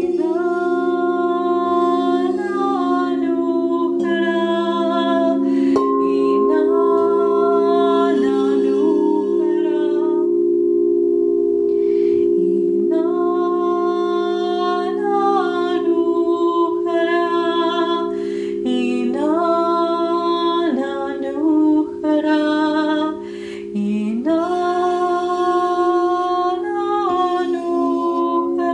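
Quartz crystal singing bowls ringing in several steady, overlapping held tones as a mallet works a rim, with a woman's voice singing a wordless, gliding melody over them. The voice drops out for a couple of seconds about a third of the way in while the bowls keep sounding.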